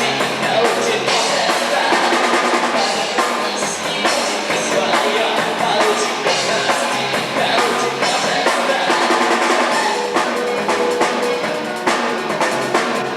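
Live band playing music with the drum kit to the fore: steady bass drum, snare and rimshot hits under the other instruments.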